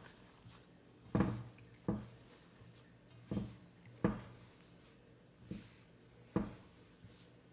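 Hands kneading and pressing potato-and-cornstarch gnocchi dough in a metal bowl, giving about six dull thumps, roughly one a second.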